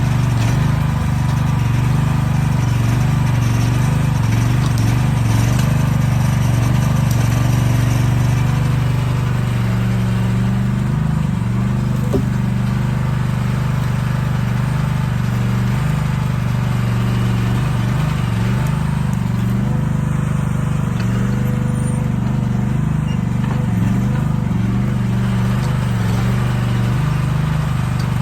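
Heavy-equipment engine running steadily with a deep, even drone, its pitch shifting slightly now and then after about ten seconds.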